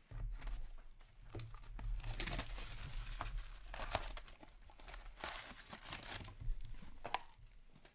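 Plastic shrink wrap on a trading card box being slit with a hobby knife and torn off, crinkling in irregular bursts. Near the end the box is opened and its foil card packs are handled, with a few sharp clicks.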